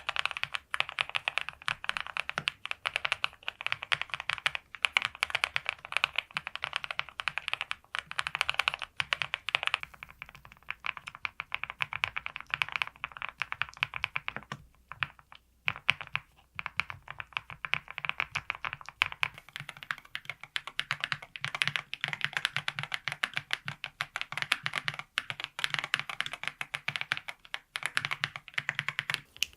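Fast typing on custom mechanical keyboards: a dense run of key clacks, with the sound changing character about ten seconds in and again after a short pause about halfway through, as different boards are typed on in turn.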